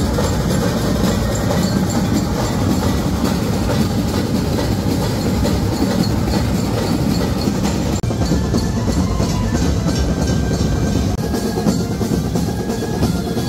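Street procession band (banjo party) playing loud, dense drumming with a fast clattering beat. After a short break about eight seconds in, pitched melody notes come in over the drums.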